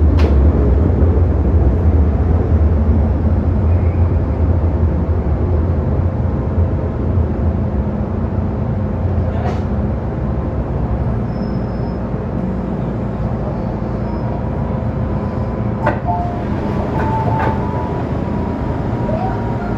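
Cabin noise inside an MTR Metro-Cammell M-Train: a heavy low rumble that eases off as the train slows. About sixteen seconds in there is a clunk, followed by a steady tone, as the doors open at the station.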